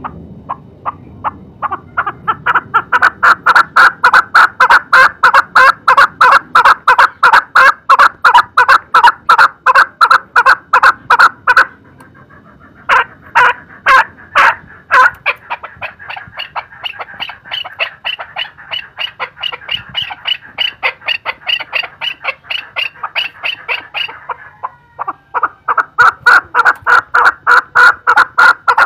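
Male chukar partridge calling: a long run of rapid, repeated clucking notes, about three to four a second, that stops briefly twice and starts again. In the middle stretch the notes are higher-pitched.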